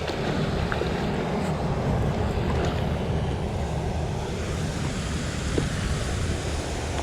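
Steady wind buffeting the microphone, a low rumbling noise with a few faint ticks.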